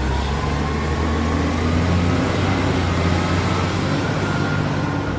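Motor vehicle engine running steadily, a low rumble with a faint whine that slowly rises in pitch.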